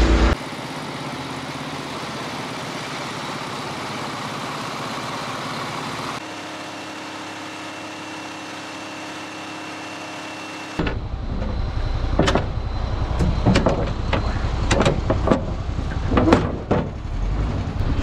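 Ready-mix concrete mixer truck's diesel engine running steadily, the noise changing abruptly about six and eleven seconds in. In the last and loudest part a low rumble comes with a series of sharp metal clanks and knocks.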